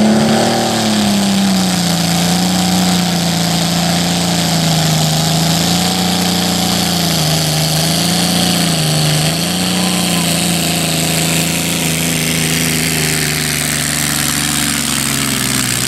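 Small garden-class pulling tractor's engine running at high revs under load as it drags the weight sled. The pitch holds fairly steady with small wobbles, dips briefly twice around the middle, and sinks slowly toward the end as the load builds.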